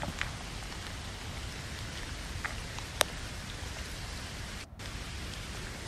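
Steady rain on a tent, heard from inside, with scattered sharper drop hits and one louder tap about three seconds in.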